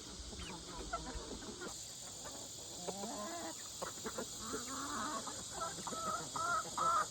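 A flock of young chickens clucking and calling as they feed, the short calls coming thicker in the second half. A steady high buzz of insects runs underneath.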